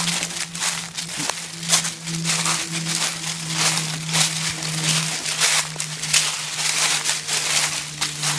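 Footsteps of a person and a small dog crunching through dry fallen leaves, an irregular crunch two or three times a second, over a steady low hum.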